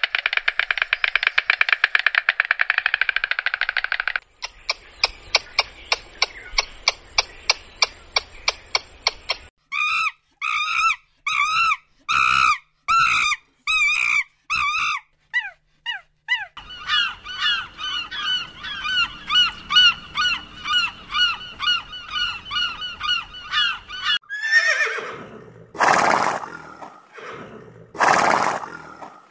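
A run of different animal calls, one after another. It starts with about four seconds of a fast, dense rattle from a white stork clattering its bill. Stretches of short, repeated honking and chattering calls follow, and a few loud horse whinnies come near the end.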